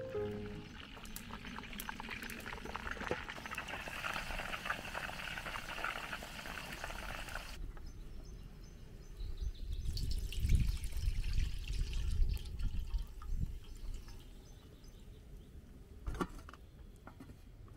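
Frying oil poured from a lidded frying pan, out past the rim of the lid, into an aluminium basin, a few seconds of pouring near the middle. Before it, a crackling hiss that cuts off suddenly, and near the end a single knock.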